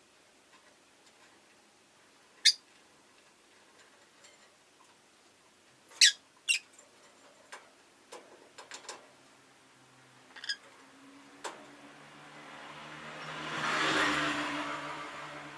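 Rosy-faced lovebird giving a few short, sharp chirps: three loud ones about two and a half and six seconds in, with fainter clicks between. Toward the end a passing vehicle swells up and fades away, with a low engine hum.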